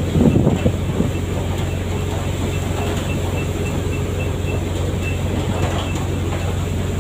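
Fishing boat's engine running with a steady low drone, with a few louder knocks in the first second.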